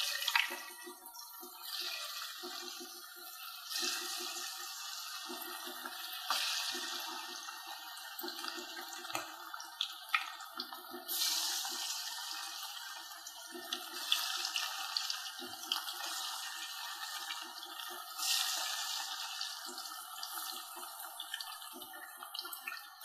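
Marinated chicken kebab pieces deep-frying in hot oil: a steady sizzle that swells louder several times as more pieces are dropped into the oil.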